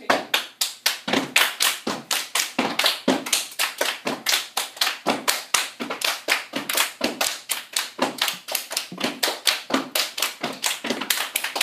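A step team of girls clapping, slapping and stomping in unison: a steady rhythm of sharp hand claps and foot stomps on a hard floor, about four hits a second.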